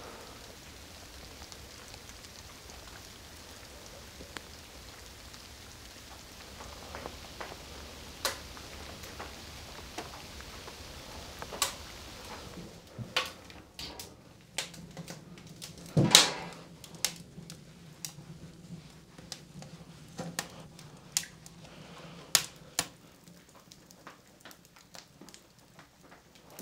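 A soft steady hiss with a few sharp ticks, then, about halfway through, wood crackling and popping irregularly in a wood-burning stove. Shortly after the crackling starts there is one loud metal clunk from the stove door.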